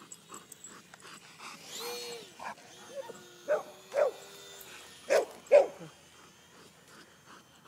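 A dog barking: two pairs of short barks, about three and a half seconds in and again about five seconds in.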